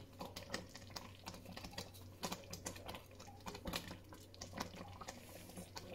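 Faint, irregular clicks and soft pops from a steel pot of thick gajrela (carrot, rice and milk pudding), with a low steady hum underneath.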